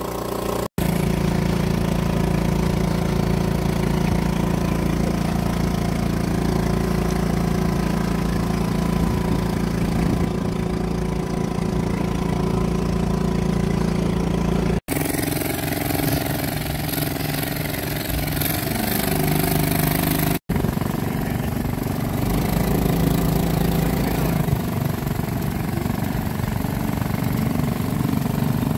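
A small boat's engine running steadily, with three brief cut-outs.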